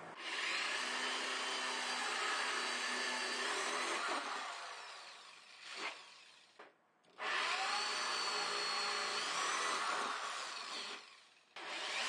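Electric drill running a 1¾-inch hole saw through the plastic wall of a storage tote, cutting holes. There are two runs of about four seconds each that wind down, with a short burst between them, and the drill starts again just before the end.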